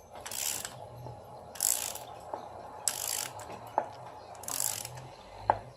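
Hand socket ratchet driving a bolt on an engine, four short bursts of ratchet clicking about a second and a half apart, with single ticks between strokes.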